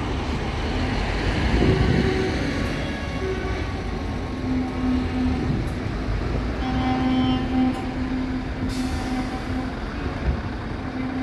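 Lorries passing with their diesel engines rumbling, and air horns sounded in several long blasts on a low, steady note.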